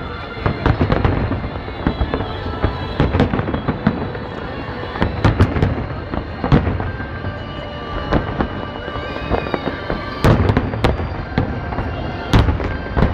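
Aerial fireworks shells bursting in a continuous barrage: a steady low rumble of booms with frequent sharp bangs and crackle. The loudest bangs come about ten seconds in and again near the end.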